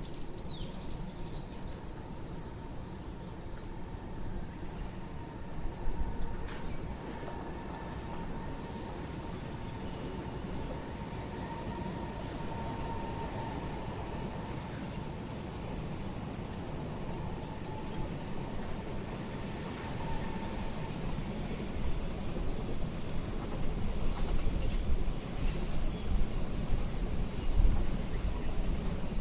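Chorus of insects trilling in a steady, dense high-pitched drone. A low rumble comes in near the end.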